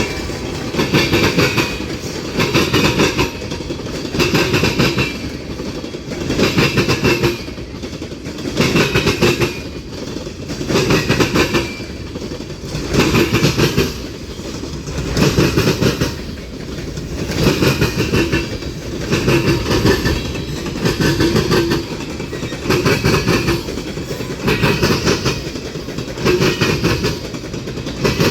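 Freight train cars rolling past, their wheels clacking over the rails in a steady rhythm, with a loud burst of clacks about every two seconds as each car's wheel sets go by.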